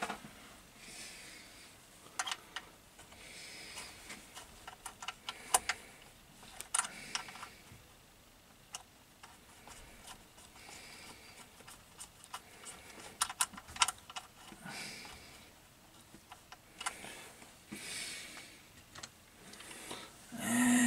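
Irregular small metallic clicks and taps with brief rustling as terminal nuts and wire ends are handled and fitted onto a small single-phase induction motor's terminal block.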